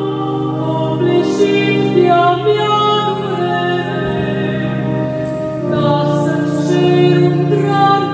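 Background music: organ holding sustained chords under a singing voice.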